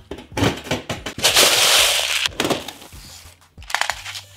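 Hex key clicking against the metal base screw of an airsoft CO2 pistol magazine, then a loud hiss lasting about a second as the tightened screw drives the 12 g CO2 capsule onto its piercing pin and the seal is pierced. A few more metallic clicks follow near the end.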